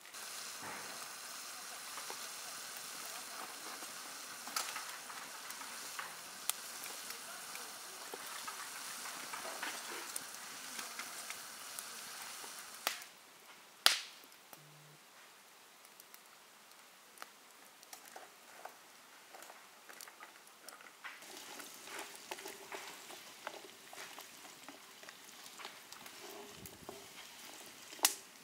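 Pan of pumpkin sizzling as it fries over an open wood fire, with small crackles running through it. About halfway through, the sizzle drops away after two sharp knocks, leaving scattered ticks. It comes back for the last several seconds and ends with another sharp knock.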